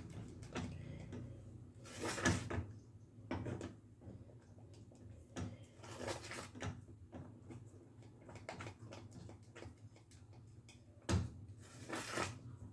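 Scattered kitchen clatter: half a dozen separate knocks and short scrapes of utensils and cookware, the loudest about two seconds in and again near the end.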